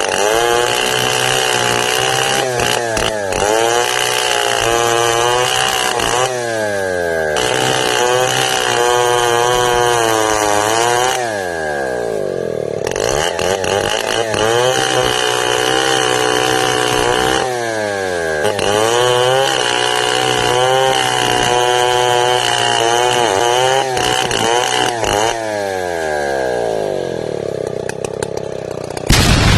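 Chainsaw cutting timber into 4 by 6 battens, running at high revs with its pitch dropping as the chain bites into the wood and rising again as the load comes off, several times over. A short louder burst comes right at the end.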